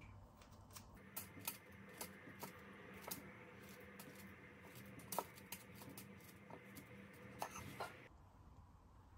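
Faint, scattered clicks and taps over a low steady hum.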